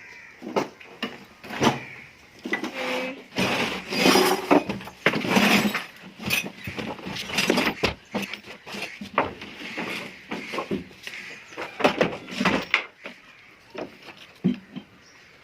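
Irregular knocking, clinking and scraping of objects being handled, with no motor running.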